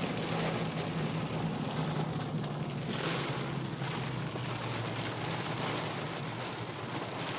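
Rain falling on a moving car, over a steady low hum from the car's engine and tyres on the road.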